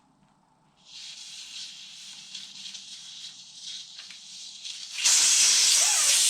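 Air hissing out through the valve stem of a motorcycle tire as it is deflated. The hiss starts about a second in and becomes much louder about five seconds in.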